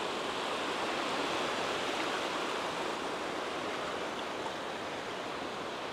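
Small waves of shallow surf washing in around the wader's legs at the water's edge, a steady, even rush of water.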